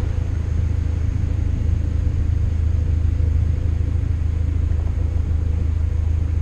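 Steady low engine rumble, even and unbroken.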